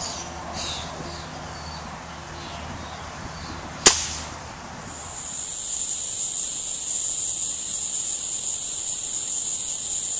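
A single rifle shot about four seconds in, sharp and loud. After it, a steady high-pitched insect drone, with fainter insect chirping before the shot.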